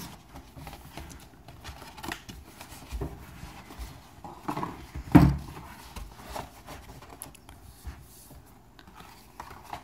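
Cardboard packaging of a laptop box being handled: the inner trays lifted and shifted with scattered light knocks and rubs, and one louder knock about five seconds in.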